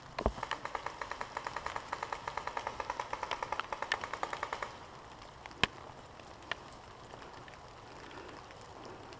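Paintball markers firing a rapid string of shots off at a distance, about nine a second for some four seconds, followed by two single shots.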